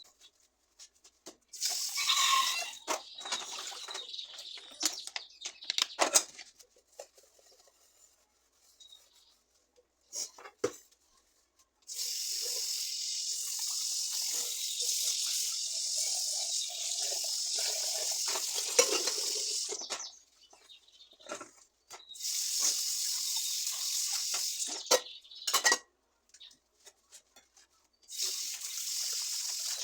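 Water running in several stretches of a few seconds each, the longest about eight seconds, with clinks and knocks in between.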